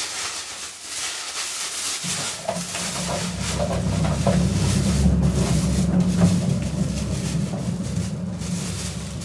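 Thin plastic film bag crinkling and rustling as it is handled and pushed through a plastic bin cassette. A steady low hum joins in about two seconds in.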